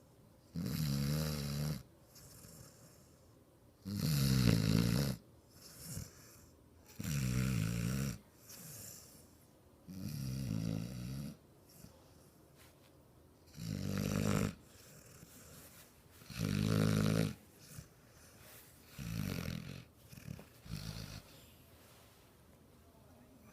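A six-month-old American bulldog puppy snoring in its sleep: about eight pitched snores, each lasting about a second and coming roughly every three seconds, with quieter breaths between. The last snores are weaker.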